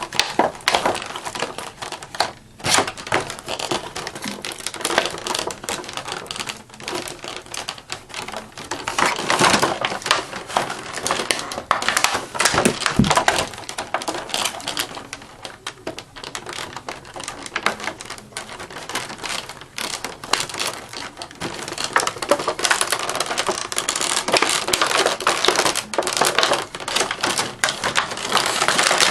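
Irregular clicking, rustling and crinkling of plastic packaging and the wire ties holding action figures in place, handled and worked loose by hand.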